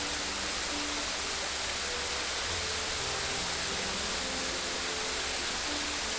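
Steady rushing of running water, with a soft slow melody of held notes playing faintly underneath.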